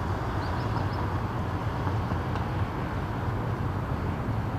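Airbus A319 jet engines at idle thrust while taxiing, heard from a distance as a steady low rumble. Four brief high chirps come about half a second in.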